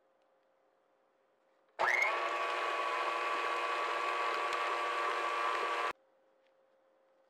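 Electric stand mixer with a flat beater whipping softened butter. The motor starts about two seconds in with a quick rising whine, runs at a steady pitch for about four seconds, then stops abruptly.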